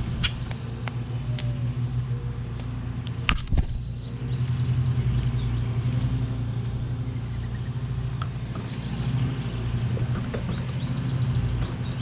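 A steady low engine hum runs through, with short high bird chirps now and then and one sharp knock about three seconds in.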